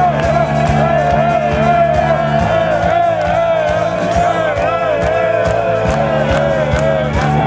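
Rock band playing live through the PA: a lead melody that wavers up and down in pitch over steady bass and drums.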